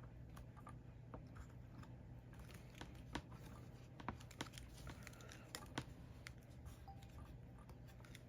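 Faint, scattered small clicks and taps from hand work on a circuit board during soldering, over a low steady hum.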